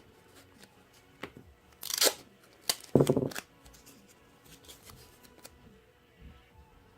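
Tape being pulled off a roll and torn, two short rips about two and three seconds in, with small handling clicks around them.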